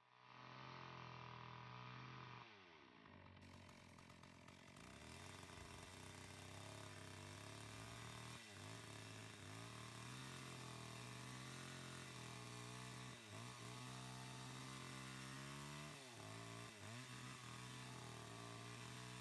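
Faint chainsaw engine running while cutting into the base of a tree trunk. Its engine note dips several times under load and recovers.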